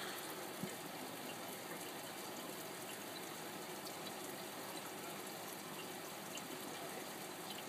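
Aquarium air-driven sponge filters bubbling: a steady watery hiss with faint small bubble ticks, and one light knock about half a second in.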